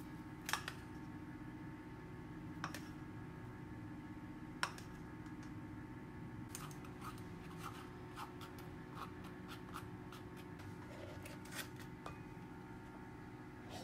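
Light clicks and taps of kitchen utensils against a bowl, a mesh sieve and a digital scale while ingredients are weighed: three sharp clicks in the first few seconds, then a quick run of small ticks and taps. A steady faint hum runs underneath.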